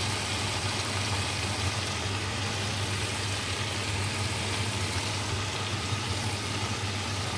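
Sausages frying in oil in a pan, a steady sizzling hiss over an even low hum.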